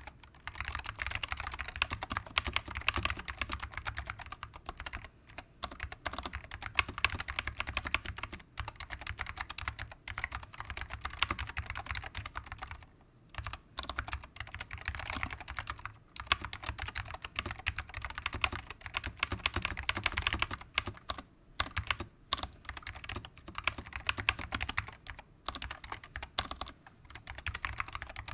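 Typing on a 60% custom keyboard with Alps SKCM salmon switches, dry-lubed with WD-40, on an AEK-II plate in a plastic GH60 case: rapid key clacks in runs, broken by several brief pauses.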